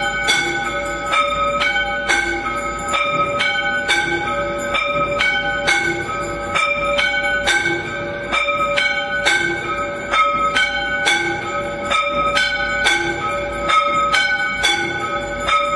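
Temple aarti bells ringing continuously, several strikes a second in changing pitches, falling into a pattern that repeats about every two seconds.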